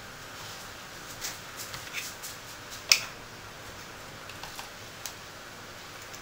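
Clicks and taps of kitchen items being handled, such as a plastic jar lid set down on a counter. The taps come in a scatter, the loudest a sharp click about three seconds in, with a few fainter ticks later, over a steady faint hiss.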